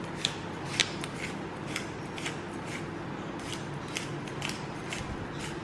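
Hand-twisted seasoning grinder clicking about twice a second as it crushes dried seasoning.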